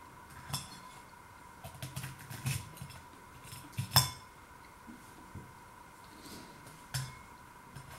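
Metal fork clinking and scraping against a bowl as pieces of battered scampi are speared, in a few separate clinks, the loudest about four seconds in.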